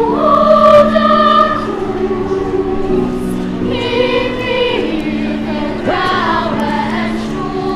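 Children's choir singing, holding long notes that change every second or so, with a quick upward slide in pitch about six seconds in.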